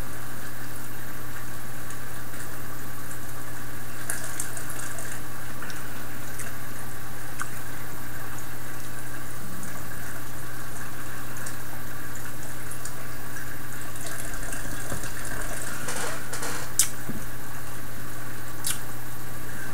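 Steady hiss with a low hum underneath, unchanging throughout, broken only by a few faint clicks and one sharper tick about 17 seconds in.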